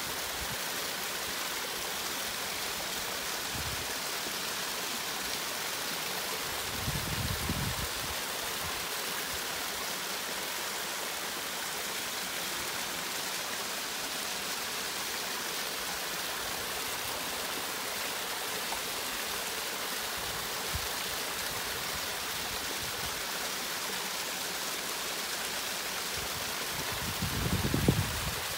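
A small waterfall: water cascading steadily down over rocks, an even rushing splash. There is a brief low rumble about seven seconds in and another near the end.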